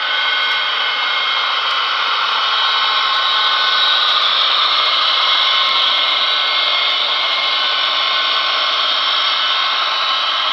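Three HO-scale model diesel locomotives running with a train: a loud, steady whirring hum with several held whining tones in it.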